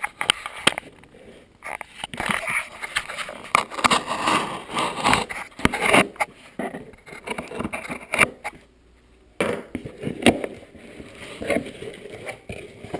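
Packaging being opened and handled by hand: rustling and scraping with scattered knocks and clicks, quiet for a moment about nine seconds in.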